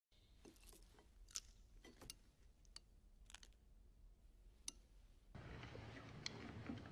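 Near-silent film sound with a dozen or so faint, sharp clicks and light clinks of tableware and food being handled on a plate. About five seconds in, a steady low room-tone hiss comes in.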